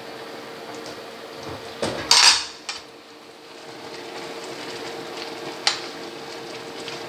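A ladle knocking and clattering against an aluminium cooking pot while stirring boiling noodle soup: a loud cluster of knocks about two seconds in, then a single sharp tap later, over a steady hiss and a faint hum.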